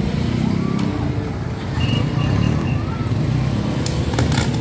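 Electrical arcing on a utility pole: a steady low electrical buzz, with a burst of sharp crackles shortly before the end as the arc flares up.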